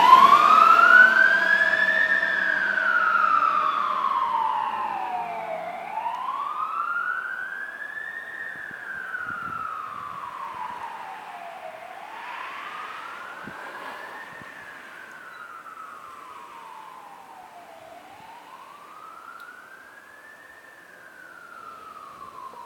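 Fire truck siren sounding a slow wail, rising and falling about every six seconds, fading steadily as the truck drives away.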